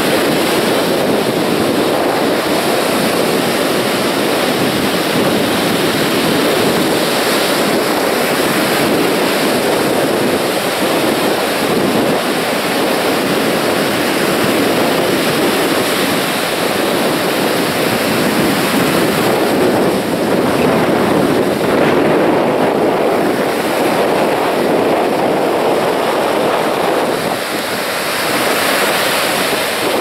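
Sea surf breaking on a sandy beach: a steady, loud wash of small waves rolling in and spilling onto the shore, swelling and easing a little.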